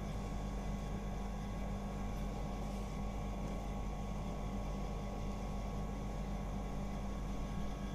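Steady low hum with an even hiss over it, holding level throughout with no distinct knocks or clicks: steady room background noise.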